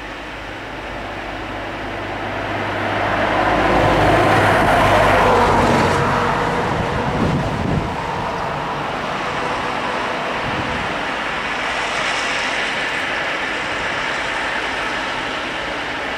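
Two DE15 diesel-hydraulic locomotives hauling a loaded ballast train as it approaches: the engines' running grows louder to a peak about four to six seconds in, then settles into a steadier rumble of the passing train.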